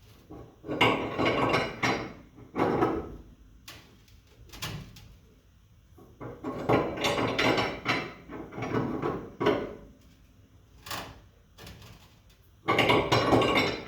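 Prototype coil spring compressor being wound down on a car's front coil spring, its threaded rod turned with a hand tool, giving several bursts of metal scraping and clanking with short pauses between. It is turning easily, with no binding.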